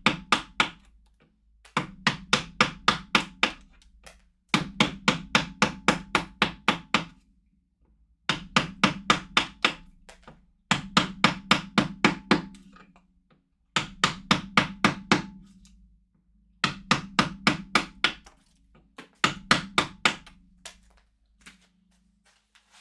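A carving mallet striking a chisel to cut into a glued-up wood block, in rapid runs of about four blows a second, with short pauses between the runs.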